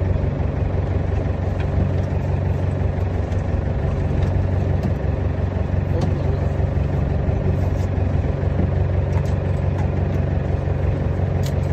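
Fishing boat's engine idling: a steady low hum.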